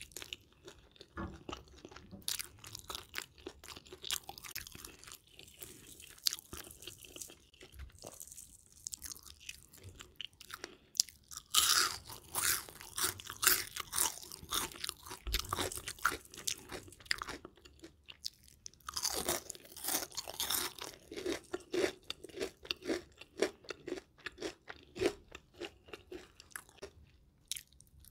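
Close-miked chewing and crunching of crispy fried food, with many sharp bites and crackles. It swells into bursts of loud crunches about halfway through and again about two-thirds through.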